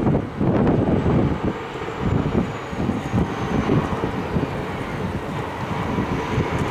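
Low rumble of a loaded mining haul truck driving past on a dirt road, with wind buffeting the microphone.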